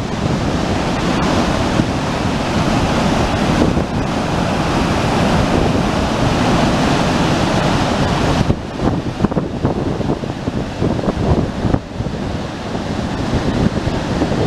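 Loud, steady rush of moving water, with wind buffeting the microphone. About eight and a half seconds in, the sound turns more uneven and gusty.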